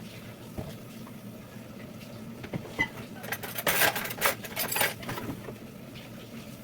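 Kitchen clatter: utensils and dishes clinking against a cooking pot, with a run of quick sharp strokes about three to five seconds in.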